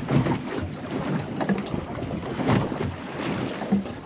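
Wind buffeting the microphone over choppy sea slapping against the hull of a small boat at anchor, uneven and gusty, with a few short knocks or splashes, the strongest about halfway through.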